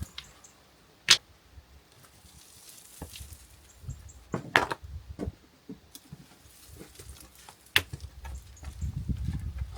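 A few separate sharp knocks and clicks of hand tools and stones against a stone wall during repair work, spaced a few seconds apart, with a low rumble building near the end.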